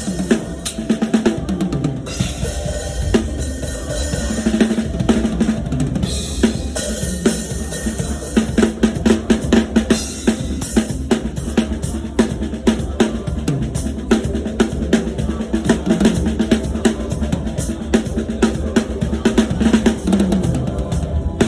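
Drum kit played with rapid, busy strokes on snare and bass drum, with low pitched notes sounding underneath.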